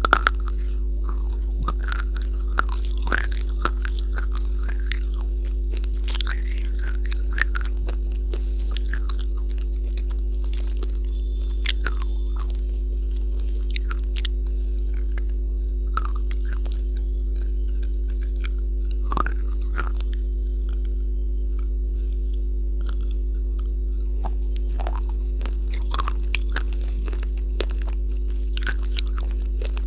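Close-miked biting and chewing of a dry, chalky block: scattered brittle crunches, thicker at the start and again near the end, over a steady low electrical hum.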